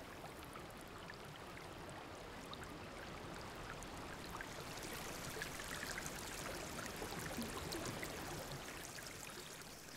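Faint, steady wash of stream water flowing through a rocky pool, with small scattered drips and splashes, growing a little louder midway before easing off.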